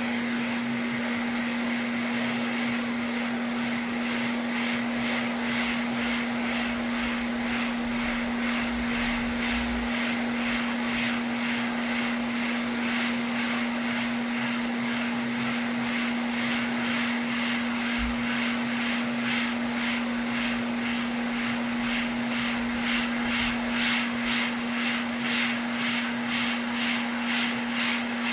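A steady electric machine hum with one strong low tone over a hiss, switched on abruptly. A faint rapid pulsing comes into the hiss in the second half.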